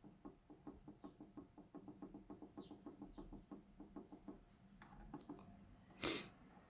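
Rapid, evenly spaced clicking, about five clicks a second for four to five seconds, followed by a few sharper ticks and one loud knock about six seconds in.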